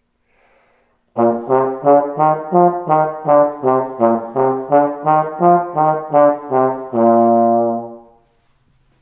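Trombone playing the five-note B-flat scale (B-flat, C, D, E-flat, F) up and down twice in quick, evenly spaced eighth notes, ending on a held low B-flat that fades out.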